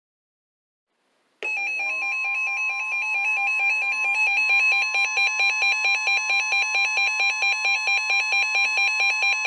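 Weather alert radio sounding its alarm for a winter storm warning: a fast two-tone warble, about five times a second, over the steady 1050 Hz weather radio alert tone. It starts suddenly about a second and a half in.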